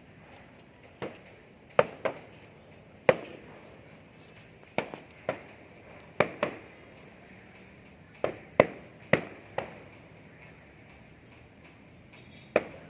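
Fireworks bursting: a string of sharp bangs at irregular intervals, several coming in quick pairs, each with a short echoing tail.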